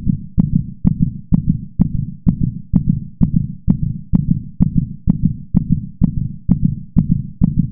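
Heartbeat sound effect: a steady, loud, pounding pulse of low thumps, each with a sharp click, about two beats a second.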